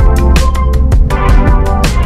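Electronic music with a heavy beat: drum hits recurring about every half second over sustained keyboard chords.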